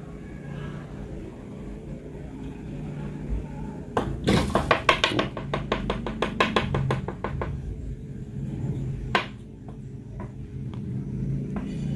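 A stick tapping and knocking on aquarium glass to tease a snakehead: a rapid run of sharp clicks, several a second, starting about four seconds in and lasting about three seconds, then a few single taps.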